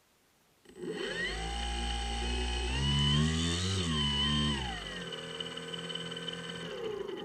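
Electric motor and propeller of a Skywalker X7 model plane starting up and spinning with a steady whine; the pitch rises as it is throttled up about halfway through, then falls back to a lower steady speed and eases down again near the end.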